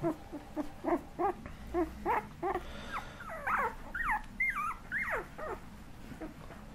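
Young puppies whimpering: a run of short squeaks, about three a second, then longer whines that rise and fall in pitch before they stop.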